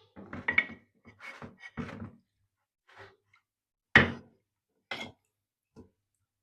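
A series of short knocks and brief scrapes, like sharpening stones and a knife being handled and set down on a hard surface, with the loudest clunk about four seconds in.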